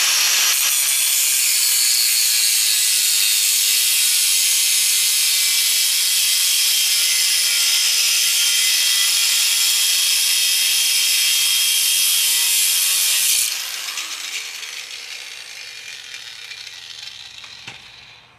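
Angle grinder with a cutoff wheel cutting through a stainless steel bicycle kickstand: a loud, steady, high-pitched grinding hiss. About thirteen seconds in it stops cutting and the sound fades gradually over a few seconds as the wheel spins down.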